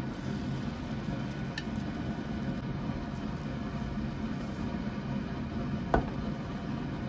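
Steady low hum of a kitchen fan while a rolled omelette cooks in a square pan, with one sharp tap about six seconds in as wooden chopsticks strike the pan.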